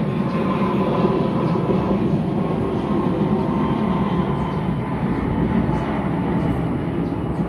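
Steady low rumble with a faint hum running through it.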